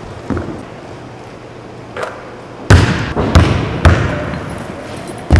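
Basketball bouncing on a hardwood gym floor. There are two faint bounces early, then three loud ones about half a second apart midway, and another near the end. Each echoes in the big gym.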